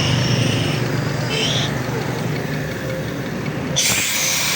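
A 7.5 kW rotary air compressor running with a steady hum. A brief hiss of air comes about a second and a half in, and a louder hiss of air starts near the end.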